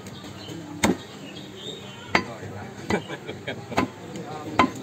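A butcher's cleaver chopping beef on a wooden tree-stump block, about five sharp chops roughly a second apart.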